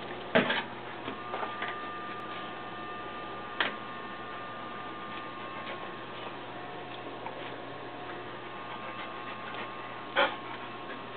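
A golden retriever puppy moving on a tiled doorstep at a door: scattered light clicks and taps, with a sharper knock about half a second in and another near the end, over a faint steady hum.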